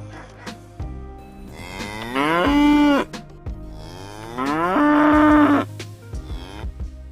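A cow mooing twice. Each moo is a long call that rises in pitch and then holds steady, with a low steady drone underneath.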